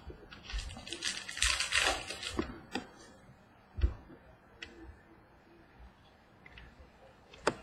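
Trading-card pack wrapper crinkling as a pack is opened, then cards handled and set down on a table, with a few sharp clicks and a soft thump about four seconds in.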